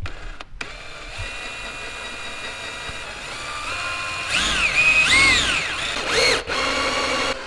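Cordless drill spinning a 3/4-inch hole saw through a plastic car bumper cover. Its whine rises and falls in pitch a few times past the middle as the bit cuts through, then stops just before the end.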